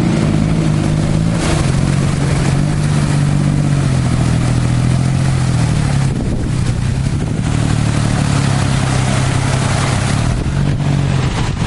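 Tuk-tuk engine running as it drives through floodwater, its tyres splashing and throwing spray, with a small pitch change around the middle. A motor scooter passes through the water near the end.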